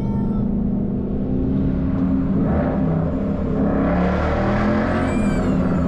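2012 Ford Mustang Boss 302's 5.0-litre V8 running under way, a steady exhaust drone that swells louder from about two and a half seconds in, through an exhaust with the side-pipe resonators deleted.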